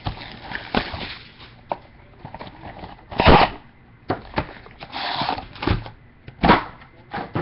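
Hands handling and opening trading-card packaging: scattered clicks and knocks of cardboard and wrapping, with a louder rustling scrape about three seconds in and further rustles later on.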